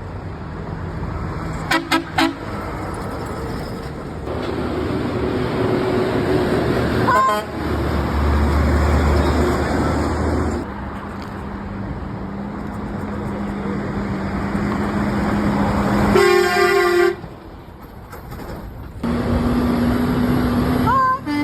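Trucks and traffic passing on a road with a steady engine drone. A truck horn honks two short blasts about two seconds in, a longer blast of about a second near the end, and starts another just at the close.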